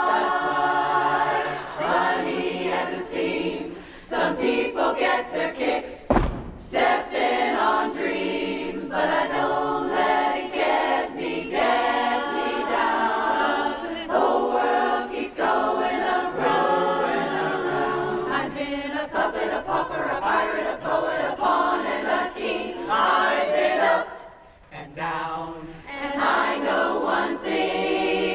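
Women's barbershop chorus singing a cappella in close harmony, with a low thump about six seconds in and a brief break near the end before the voices come back in.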